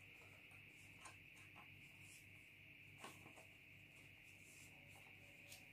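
Near silence with a few faint rustles of a small paper pattern piece being unfolded and handled, over a steady faint hiss.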